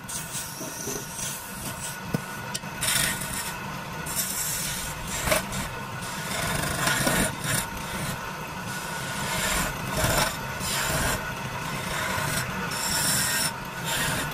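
Wood lathe running with a steady hum while a hand-held turning chisel cuts into the spinning wooden baluster: a scraping cut that comes and goes in short strokes as the tool is pressed in and eased off.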